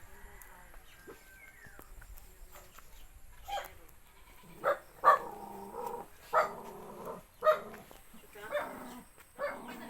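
A dog barking repeatedly, short sharp barks about once a second that start a few seconds in.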